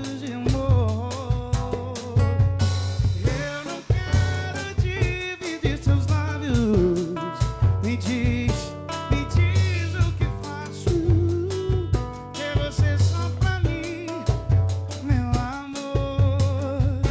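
Music: a song with a steady drum-kit beat, bass, and a lead melody with vibrato.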